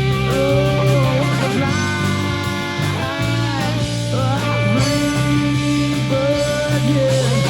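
Rock band playing live, an electric guitar holding long notes and bending them up and down over steady bass and drums.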